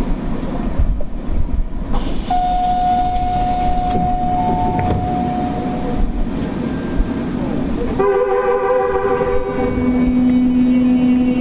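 Running noise inside a Kita-Osaka Kyūkō 9000-series subway train travelling through a tunnel: a steady rumble with air-conditioning noise. A held tone comes in about two seconds in and stops about four seconds later, and several held tones start about eight seconds in.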